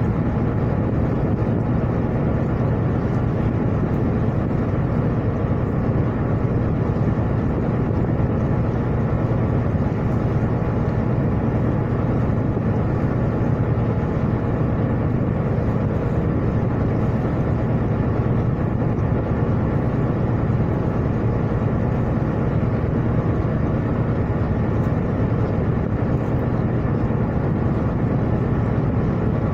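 A ship's engine drones steadily while the vessel is under way. A constant low hum sits under an even rush of wind and water noise.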